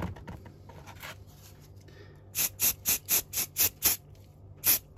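Aerosol can of black spray primer (Chaos Black) fired in short, quick bursts, about four a second. The run starts about two seconds in, pauses, and one more burst comes near the end, with light handling of the model board before it.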